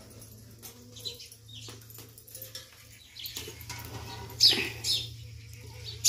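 Small birds chirping, with a few short, sharp calls falling in pitch in the second half, over a faint low steady hum.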